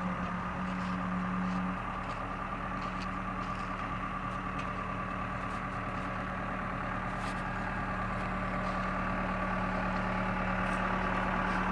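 Backhoe engine running steadily at a constant speed, its hum growing slightly louder near the end.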